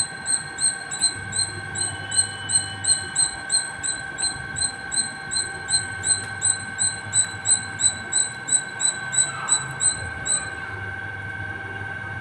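A squirrel calling a rapid, even run of sharp high-pitched chirps, about three a second, which stop about ten seconds in.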